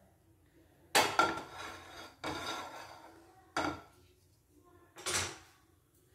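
A non-stick frying pan being set down on a gas stove's pan support, knocking and scraping against it in about five separate clunks.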